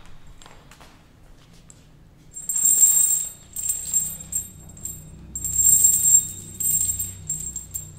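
Metallic jingling in several bursts, starting about two and a half seconds in, over a low steady drone.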